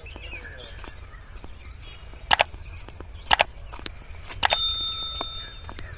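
Sound effects of a subscribe animation: two sharp mouse clicks about a second apart, then a bell ding that rings out and fades over about a second. Under them, faint footsteps on track ballast and wind rumble on the microphone.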